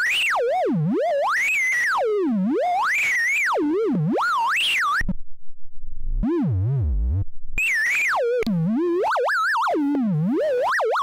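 Eurorack synth oscillator whose pitch swoops up and down in uneven, looping curves, its frequency modulated by three sine-wave LFOs mixed and rectified through an Earwig rectifying mixer. About five seconds in, the tone drops to a low, wobbling buzz for a couple of seconds, then the high swooping returns.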